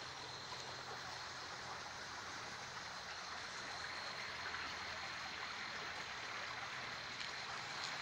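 Faint, steady rush of a small creek's water.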